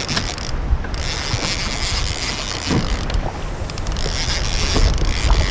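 Fishing reel being cranked against a hooked paddlefish, its gears whirring and clicking, with wind rumbling on the microphone.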